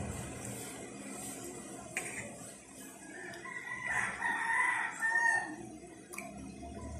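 A drawn-out fowl call, about two seconds long, starting a little past the middle, over a faint steady low hum, with a couple of light clicks before and after it.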